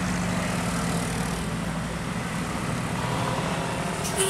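Road traffic on a hill road: a tour bus and cars driving past with a steady low engine drone. A short, sharp sound is heard near the end.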